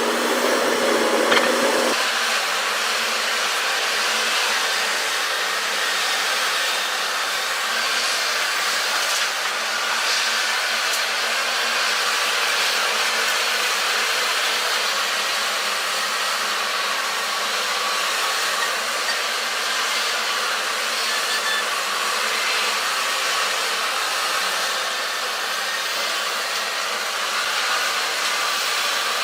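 Steady whirring machine noise running without letup, its tone shifting about two seconds in.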